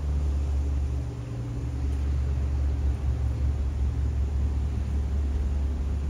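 Low, steady engine rumble of an approaching Alsthom diesel-electric locomotive hauling a passenger train.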